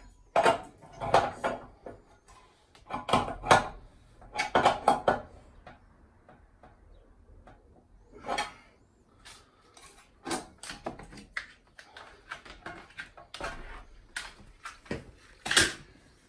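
Spanner and metal pipe fittings on a gas meter clinking and knocking in irregular clusters as the unions are handled and tightened.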